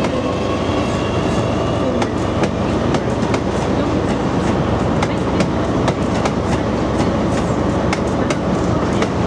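Great Northern electric multiple unit pulling out along the platform, its wheels clicking irregularly over rail joints and pointwork above a steady rumble. A faint electric motor whine fades out in the first couple of seconds.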